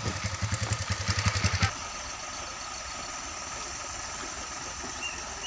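Isuzu truck's diesel engine idling with an even, pulsing rumble, cut off suddenly about 1.7 seconds in. After that there is a quieter steady background hum with a brief high chirp near the end.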